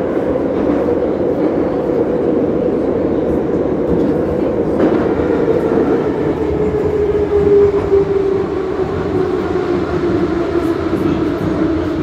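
Sokolniki retro metro train running, heard from inside the carriage: a steady rumble of wheels and motors with a whine that falls slowly in pitch over the second half as the train slows into a station.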